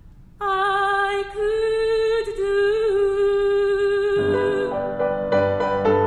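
A female classical singer holds one long sung note with vibrato. About four seconds in her voice stops and a grand piano takes over, playing a run of notes and chords.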